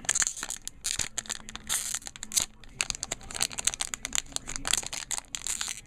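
Hockey card pack wrapper crinkling and tearing in the hands, in quick irregular crackles, as a pack that is really hard to open is pulled at.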